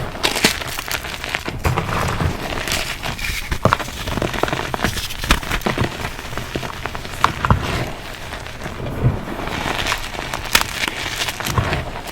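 Reformed gym chalk and cornstarch crunchies being crushed: a dense, continuous run of crisp crunches and crackles.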